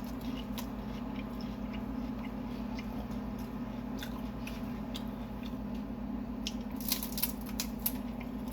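A person chewing and eating Chinese takeaway food: wet chewing with scattered small clicks, a cluster of them about seven seconds in, over a steady low hum.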